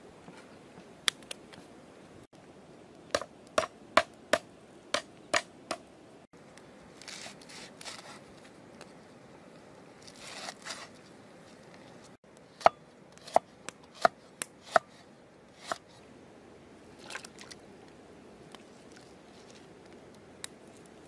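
Knife chopping against wood: two runs of about seven sharp knocks, two to three a second, with a few single strikes and brief softer noises between them.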